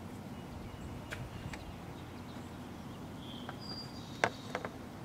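Scattered light plastic clicks and knocks as a loosened distributor cap is pulled off the distributor and handled with its spark plug wires still attached; the loudest knock comes about four seconds in, followed by two smaller clicks. A steady low rumble runs underneath.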